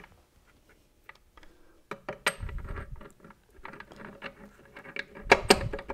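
Light metallic clicks and taps of transmission parts being handled and seated in a Muncie 4-speed's aluminium case as the reverse idler gear and shaft go in. There is a soft thump about halfway through and a quick cluster of louder knocks near the end.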